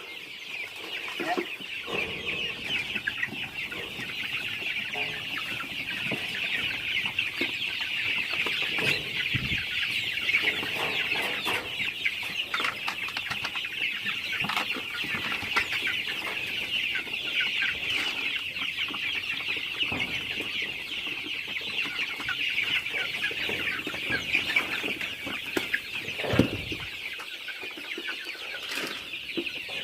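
A brood of village-chicken (ayam kampung) chicks peeping continuously, many high calls overlapping into a steady chorus, with one brief low knock near the end.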